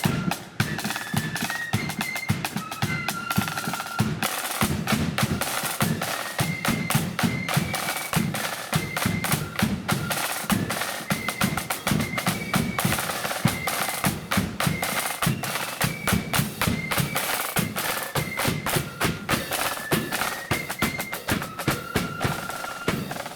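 Marching flute band playing a tune: a high flute melody over rapid, continuous snare drumming and bass drum beats.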